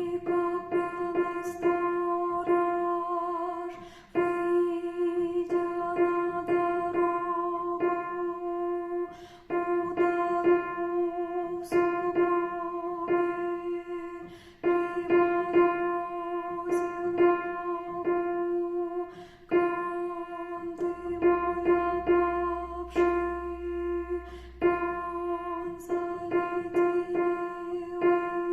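An instrumental arrangement of a Russian folk-style song: one note is held steadily underneath while quick melody notes are played over it. The held note breaks off briefly about every five seconds.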